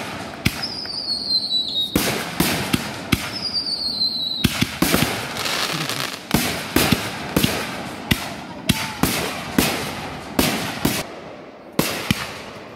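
Aerial fireworks bursting in quick succession: a string of sharp bangs, about one or two a second, with two whistles falling slightly in pitch in the first few seconds. The bangs grow fainter near the end.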